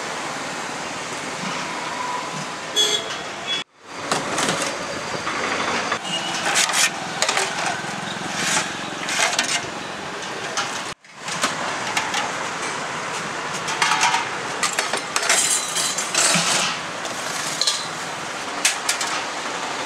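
Street traffic noise with repeated sharp clinks and knocks of stainless steel pots, lids and plates being handled.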